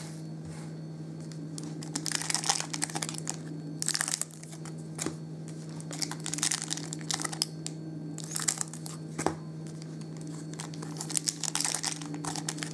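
Foil Topps Chrome trading-card packs crinkling as they are handled and torn open, in irregular bursts over a steady low hum.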